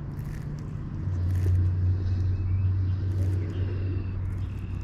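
A low, steady motor hum that grows stronger about a second in and eases off toward the end.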